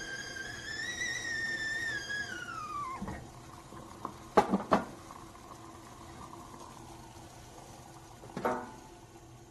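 Stovetop borosilicate glass tea kettle's whistle sounding a steady high tone that bends up a little, then slides down in pitch and dies away about three seconds in. A few sharp clacks follow a little later, and one more comes near the end.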